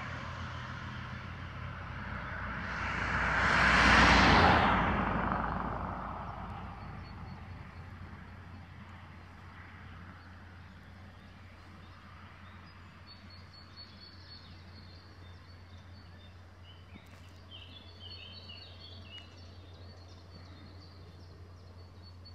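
A road vehicle passing close by, its noise swelling to a peak about four seconds in and fading over the next few seconds. Afterwards faint bird chirps come and go over a steady low hum.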